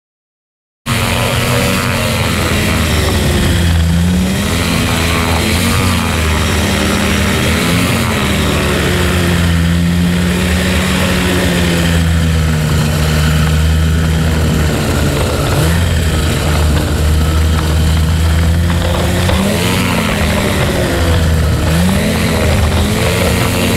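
Pegasus XL-SE microlight trike's two-stroke engine and propeller running as the trike taxis on the ground. The sound starts suddenly about a second in, then runs steadily, with the pitch rising and falling briefly several times as the throttle is blipped.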